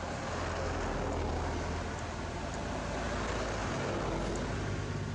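An engine running close by: a steady low hum that swells over the first second and shifts in pitch near the end.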